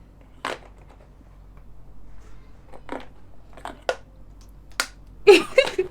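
Nearly empty plastic body-oil bottle being forced open to get at the last of the oil: a handful of sharp plastic cracks and clicks, spaced out, with a louder cluster of them near the end.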